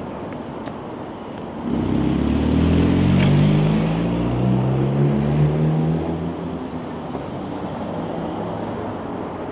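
A motor vehicle passing close by on a city street. Its engine note comes in suddenly about two seconds in, stays loud for about four seconds, then fades, over a steady background of traffic and wind noise.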